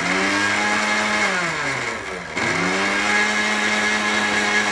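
Electric kitchen mixer grinder's motor whirring as it grinds dry coloured corn-flour powder in a small steel jar. It spins down with a falling pitch about a second and a half in, then starts up again and runs steadily in a second pulse.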